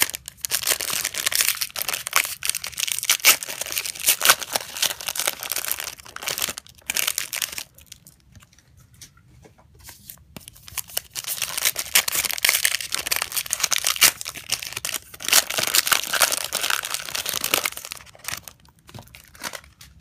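Trading card pack wrappers being torn open and crinkled by hand, with dense crackling in two long stretches separated by a quieter pause of about three seconds.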